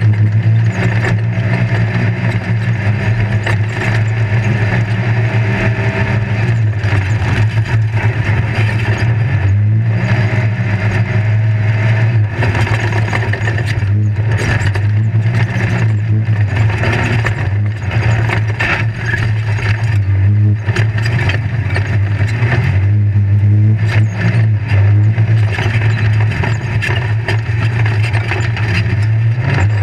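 Off-road race vehicle's engine running under load at a fairly steady pitch, heard inside its caged cab, with constant rattling and knocks from the chassis and suspension over rough desert ground.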